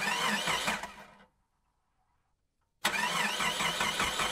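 Two bursts of an engine-like sound with a warbling pitch. The first starts abruptly and fades out within about a second. The second starts abruptly about three seconds in and keeps going.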